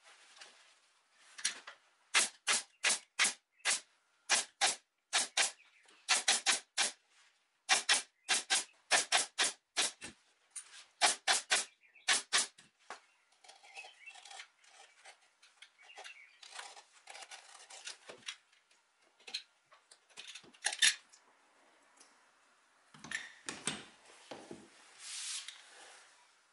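Pneumatic upholstery stapler firing staples through leather into a wooden panel: a run of sharp shots, about three a second in quick groups. The shots stop about halfway through, leaving quieter rustling and handling of the leather with a few knocks.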